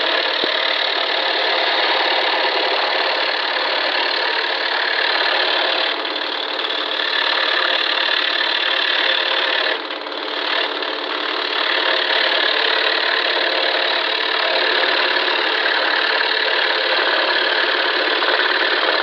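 Scroll saw running, its blade reciprocating steadily as it cuts a heart shape out of wood, with a brief easing about halfway through.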